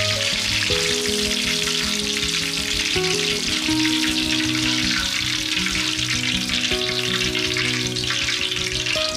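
Fish meatballs sizzling steadily as they fry in hot oil, a dense crackle throughout. Soft background music with held notes plays underneath.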